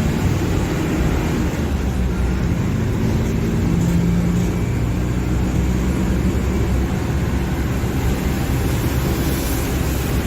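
Diesel engine of a Mercedes-Benz OF-1721 Bluetec 5 bus chassis, a four-cylinder, running steadily with a low hum.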